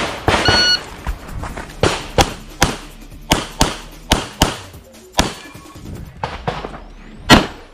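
A shot timer beeps once, then a Glock 17 9mm pistol fires a rapid string of shots, mostly in quick pairs, as targets are engaged in an IPSC stage.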